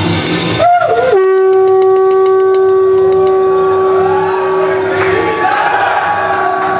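Conch shell (shankh) blown: the note swoops briefly, then settles about a second in into one long steady tone held for about four seconds, the customary call sounded at a Hindu puja.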